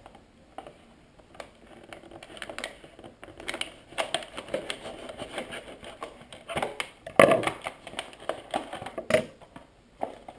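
Irregular clicks, taps and rustling of a Leatherman Surge multitool and its packaging being handled, with a sharper knock about seven seconds in and another about two seconds later.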